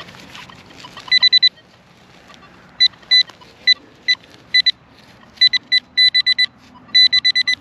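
Metal detecting pinpointer beeping in clusters of rapid, high short beeps, some bursts long and some single, as it is swept over the dug plug and hole to locate a buried target.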